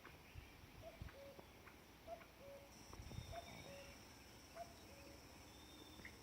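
Faint, distant bird calling a low two-note call, a higher note then a lower one, repeated about every second and a bit, over a steady high-pitched hiss.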